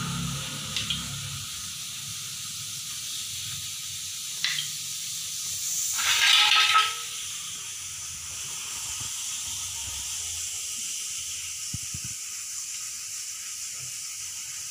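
Steady hiss, with a few light clicks and, about six seconds in, a louder noise lasting about a second, as raw goat tripe is handled and cleaned by hand beside pots of water on a wet floor.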